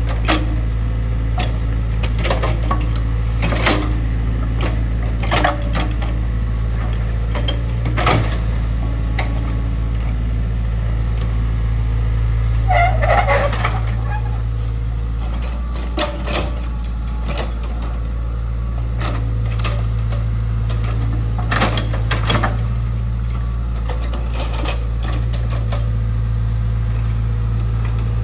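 Hydraulic excavator's diesel engine running steadily under a low drone, with frequent sharp metallic clanks and knocks as it works.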